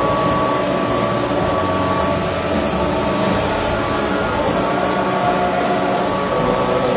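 A workshop machine running steadily, an even mechanical noise with a few constant tones and no change in speed.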